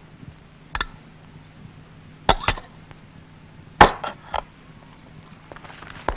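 Several sharp clinks and knocks of kitchen vessels and utensils being handled, spaced irregularly, with the loudest near the middle.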